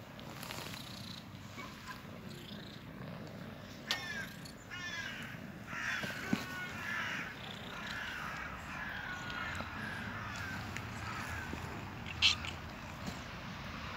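A street cat purring steadily while being petted, with a run of short, high chirping calls from about four seconds in that stop a little before the end. A few sharp clicks from handling, the loudest near the end.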